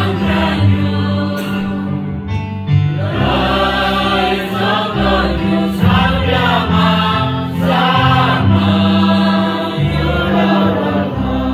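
A church congregation of men and women singing a hymn together.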